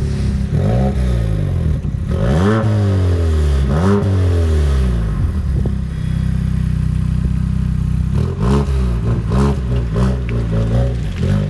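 Ford Focus ST Turnier's 2.3-litre turbocharged four-cylinder revved at a standstill through its twin exhausts. Three rising-and-falling throttle blips are followed by a few seconds of steady idle, then a quick run of short blips near the end.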